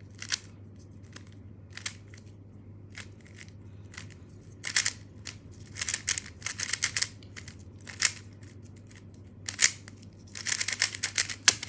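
A non-magnetic GAN Monster Go puzzle cube being turned quickly in a timed first-layer solve. Its plastic layers click and rattle, scattered at first and then in dense bursts, busiest near the end.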